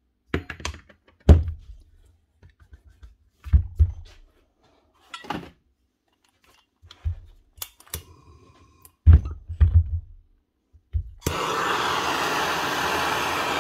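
A run of separate knocks and thunks as metal hammer-drill parts and the housing are handled and set down on a workbench. Then, about eleven seconds in, a gas torch starts a loud steady hiss as its flame is played onto the metal gearbox housing of the Bosch GBH 8-45 D rotary hammer.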